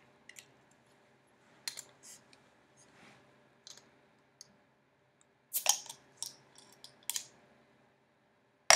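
A glass beer bottle being worked open: scattered small clicks and taps of fingers and metal on the crown cap and glass, a few louder ones past the middle, ending in a sharp metallic click as the cap comes free.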